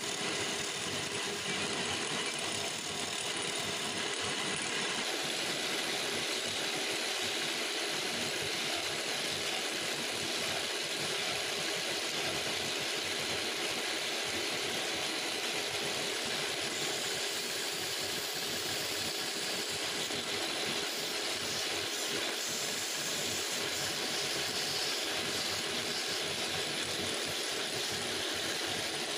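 Wood lathe running steadily while a hand-held chisel cuts the spinning wooden spindle.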